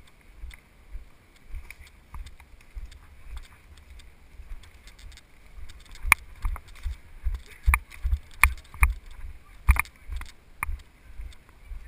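Footsteps walking along a muddy, twig-strewn trail, a low thump about twice a second with each step. From about halfway through, several sharper cracks and knocks sound among the steps.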